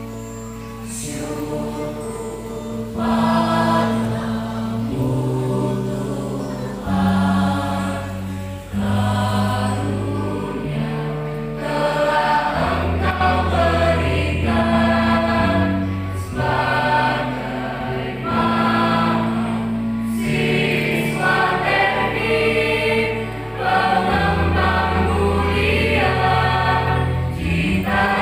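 A mixed choir of students singing in parts, holding sustained chords that change every second or two; it swells louder about three seconds in.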